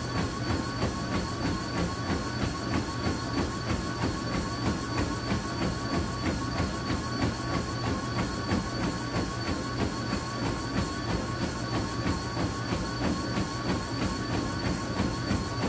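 Treadmill running under a runner's steady stride: a constant motor whine and hum, with footfalls thudding on the belt at about three a second.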